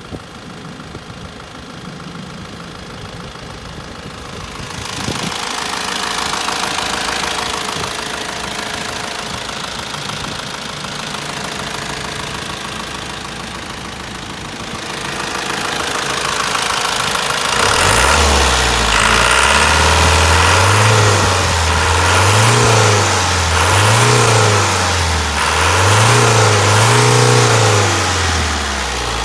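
Toyota Dyna truck's diesel engine idling steadily, then revved up and let back down about four times in a row in the last ten seconds, each rev lasting a second or two.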